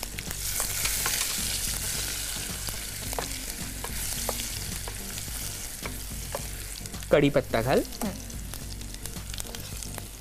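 A tempering of mustard seeds, cumin, garlic and asafoetida sizzles in hot oil and ghee in a kadhai while a wooden spatula stirs through it, with scattered light clicks. The sizzle is strongest in the first few seconds and then eases.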